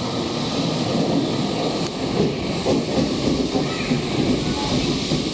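Subway train running through an underground station platform: a steady noise with hiss.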